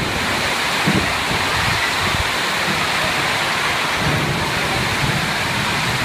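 Heavy rainstorm with strong wind: rain pouring down in a steady, loud rush, with low rumbling gusts about a second in and again around four seconds.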